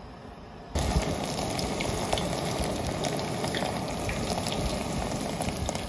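Cubes of bear meat deep-frying in hot rendered bear fat in a small pot: a dense, steady sizzle with many sharp little pops, starting suddenly about a second in.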